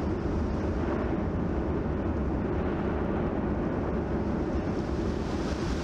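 Explosive volcanic eruption rumbling: a steady, deep noise with no distinct blasts.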